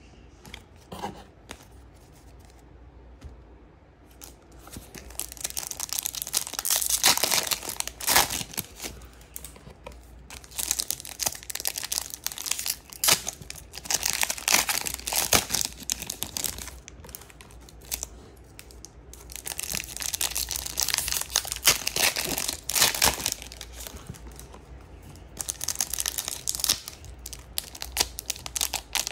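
Foil wrappers of Topps Chrome card packs being torn open and crinkled, in about four rustling bouts after a few quieter seconds of light clicks.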